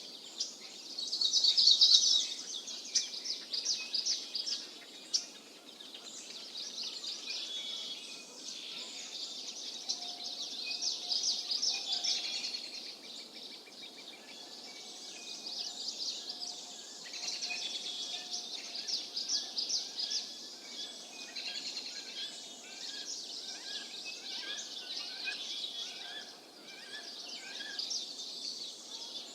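Birds calling in the background: repeated rapid, high chirps and trills throughout, joined in the second half by a series of short, lower whistled notes about one a second.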